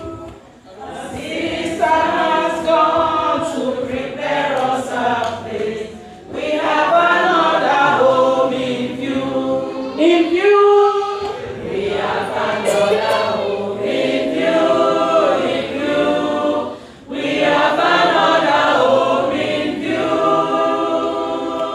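A group of voices singing a hymn together without accompaniment, in long phrases with brief breaks between them.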